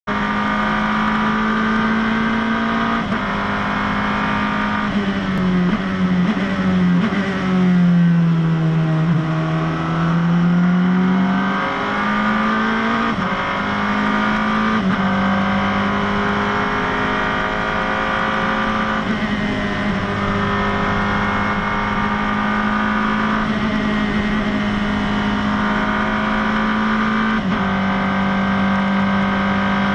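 Turbocharged engine of a Praga prototype race car heard from inside the cockpit, running at a fairly steady pitch with a few gear changes. Around the middle the pitch dips and then climbs back as the car slows and picks up speed again.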